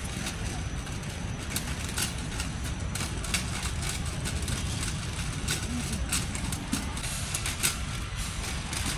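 Airport terminal hall ambience: a steady low rumble with scattered light clicks as someone moves through the concourse.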